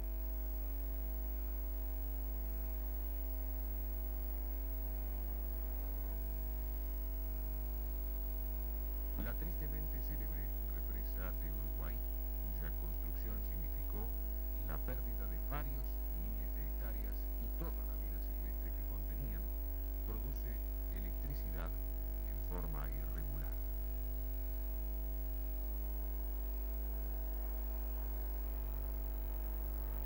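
A steady low hum with a stack of even overtones, unchanging throughout. From about a third of the way in until about three quarters, faint, indistinct voice-like sounds rise and fall beneath it.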